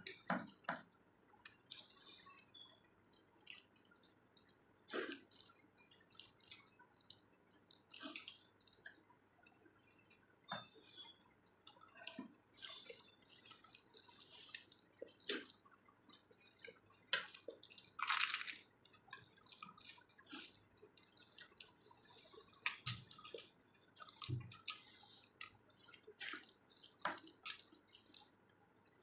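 Wet chewing and mouth smacking of a person eating a rice meal close to the microphone: irregular short smacks and clicks, with a longer, louder one about 18 seconds in.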